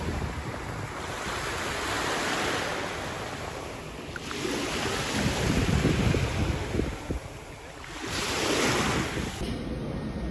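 Caspian Sea surf washing onto the shore, swelling and fading three times, with wind on the microphone.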